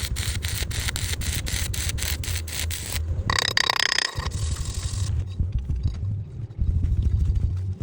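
Stick-welding arc crackling and hissing over a low hum. About three seconds in it gives way to a brief, sharper scraping, then quieter noise.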